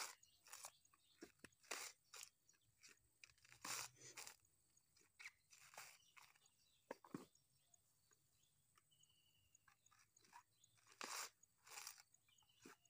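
Dry coconut husk being torn and handled by hand: irregular crackling, tearing crunches with short quiet gaps between them.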